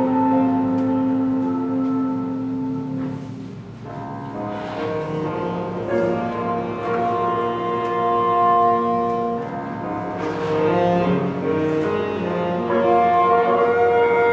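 A small live band of trumpet, saxophone, piano, double bass and drums playing, the horns holding long notes together over the accompaniment, with a brief softer moment about four seconds in.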